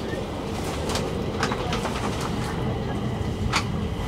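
Stockholm metro train running, heard from inside the passenger car: a steady low rumble with a few sharp clicks and creaks scattered through it.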